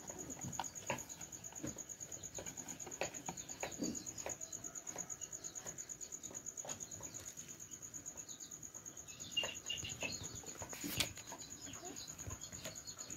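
A cricket trilling steadily at a high pitch in a fast pulsing rhythm. Scattered soft scuffs and taps from cats moving against a wooden bench and concrete floor, with one sharper click about eleven seconds in.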